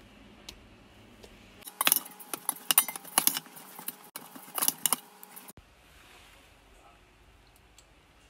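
Metal spoon clinking and scraping against a metal pot while stirring a damp oat mixture. It comes as a run of sharp clatters that starts a couple of seconds in and stops about two seconds later.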